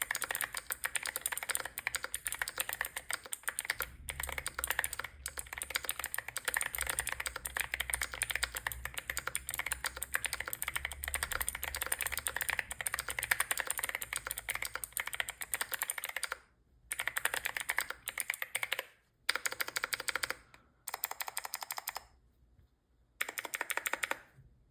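Typing on a Cidoo V68 aluminium Alice-layout mechanical keyboard fitted with Echo Creamy Cyan clicky switches: rapid, steady key clicks. After about 16 seconds the typing breaks into short bursts with brief pauses between them.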